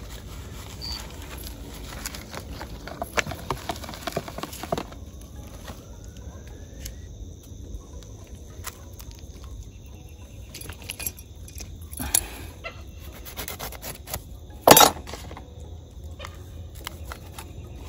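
Hands handling seasoning packets, a plastic tray and raw tilapia: soft rustling and scattered small clicks, with one brief louder sound about fifteen seconds in.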